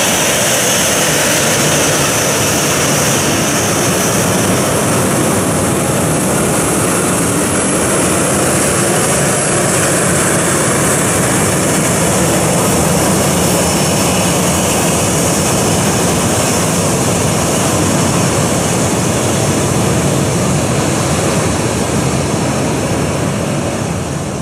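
Boeing 737-800's twin CFM56-7B turbofans at taxi power: a steady jet roar with a high whine that eases after about four seconds. The sound fades out near the end.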